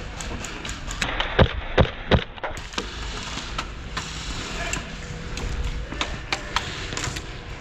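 Airsoft guns firing: scattered sharp cracks at an irregular pace, three loud shots in quick succession about a second and a half in, over low rumbling handling noise.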